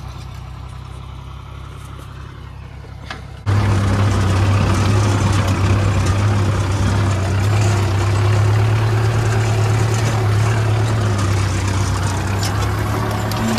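Swaraj 963 tractor's diesel engine running steadily under load while pulling a seed drill, heard from the driver's seat as a steady low hum. A few seconds in it jumps suddenly much louder and stays that way.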